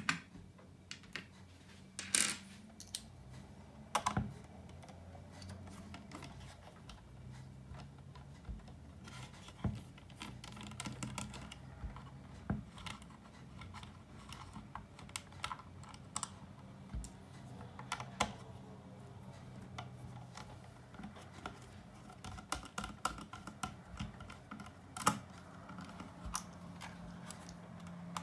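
Irregular small clicks and taps of plastic and metal parts and tools being handled while an amplifier unit is taken apart, a few of them sharper knocks.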